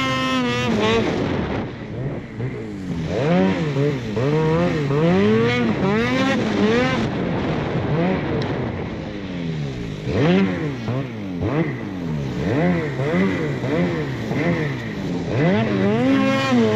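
Snowmobile engine revving up and down over and over, its pitch rising and falling about once a second as the throttle is worked across bumpy snow.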